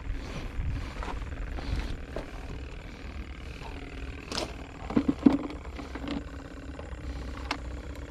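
Low, steady rumble of wind buffeting the microphone, with scattered clicks and knocks from handling fishing gear and a bait bucket on the concrete blocks, and a brief cluster of louder knocks about five seconds in.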